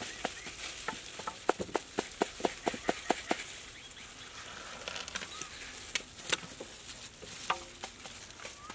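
Knife slicing ripe mango flesh held in gloved hands: a quick run of sharp clicks, about four a second, that thins out to scattered clicks after a few seconds, over a faint outdoor hiss.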